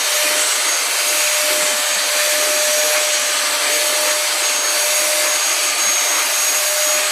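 Vacuum cleaner running steadily with a constant motor whine, its nozzle being run over a cat's fur.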